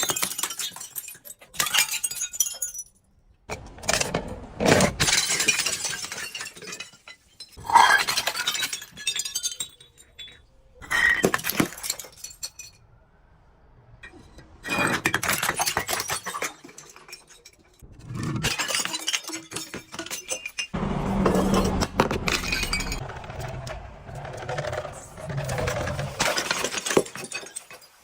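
Glass breaking and crunching in repeated bouts of sharp cracks and tinkling shards, each bout lasting a second or few, with short pauses between them.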